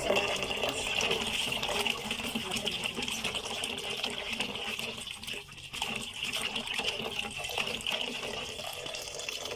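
Tap water running into a bowl of okra pods in a kitchen sink, a steady rush with splashing as a hand swishes and rubs the pods under the stream to wash them.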